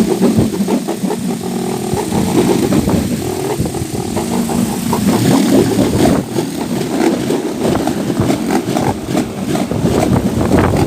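Wind-driven propeller toy spinning fast in strong wind, giving a loud, rough buzzing drone that wavers as the wind gusts.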